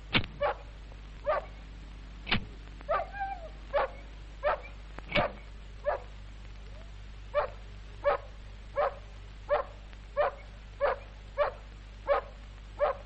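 A dog giving short, regular yelping barks, about one every three-quarters of a second, with a brief drawn-out whine about three seconds in.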